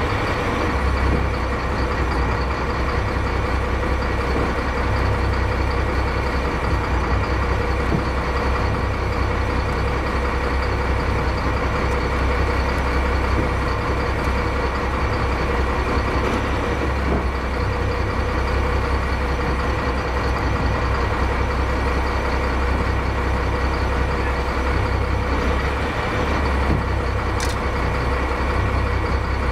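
Crab boat's engine running steadily at idle, a low drone with a steady hum above it.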